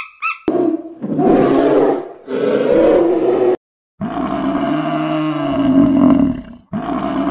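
A large animal giving four loud, long, low calls in a row, each cut off sharply, the third the longest; the last of a series of short honks ends just before them.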